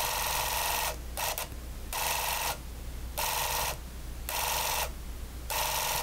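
Beaulieu 4008 ZM II Super 8 camera's motor running in short bursts, starting and stopping about once a second, six times or so. It is wired to a normally closed momentary switch, so it runs when the button is let go and stops each time the button is pressed.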